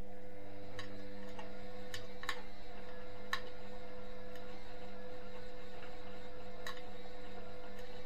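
Indesit front-loading washing machine running with a steady electric hum that sets in at the start. A handful of sharp ticks and clicks are scattered irregularly through it.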